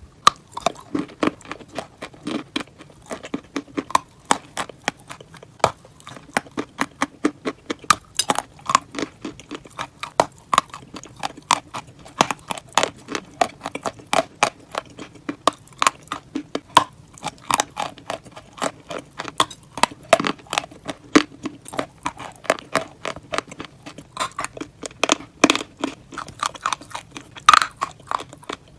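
Close-miked crunching and chewing of a toasted grilled sandwich: rapid, sharp crisp crackles, several a second, without a break.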